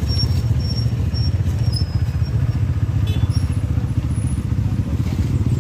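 A vehicle engine running close by, a steady low rumble that holds level without rising or falling.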